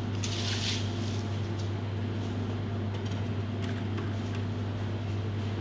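Steady low hum of running kitchen equipment, with a short rustle about half a second in and a few faint clicks of handling.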